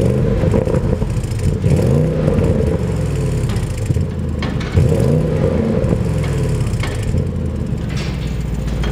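2020 Audi S8's twin-turbo V8 on its stock exhaust, revved twice from idle, the pitch rising and falling each time, and idling in between.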